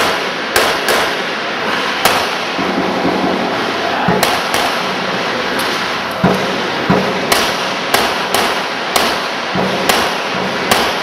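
Handgun shots fired during an IPSC practical shooting stage: about fifteen sharp reports in quick pairs and short strings, with brief pauses between groups.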